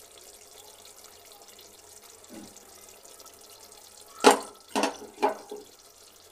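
Three sharp knocks about four to five seconds in, the first the loudest: a spoon knocking against the vessel as spiced yogurt is spooned onto chicken. Beneath them is a faint, steady sizzle of the chicken frying on a low flame.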